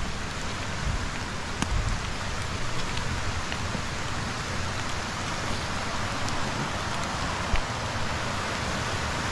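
Steady hiss of water, from rain and a small woodland stream, with a few faint sharp ticks.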